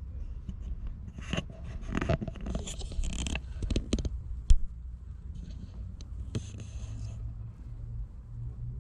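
Rustling and scraping of objects being handled, with scattered clicks and one sharp knock about four and a half seconds in.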